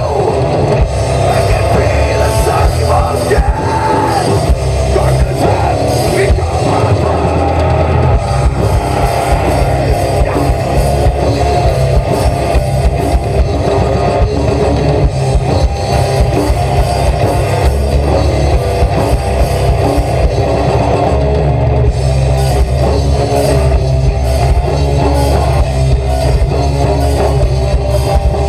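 Live heavy rock band playing loud and without a break: distorted electric guitars over bass and a drum kit.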